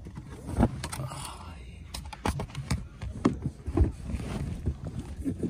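Handling noise close to the microphone: irregular knocks and clicks as things are moved about and bump against it, over a low rumble.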